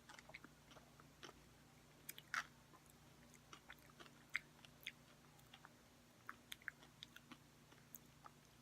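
Faint, close-miked chewing of Cherry Cola Oreo cookies: scattered soft crunches and small mouth clicks at irregular intervals, over a low steady hum.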